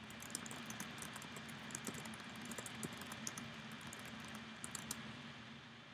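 Typing on a computer keyboard: a faint, quick, irregular run of key clicks that thins out near the end.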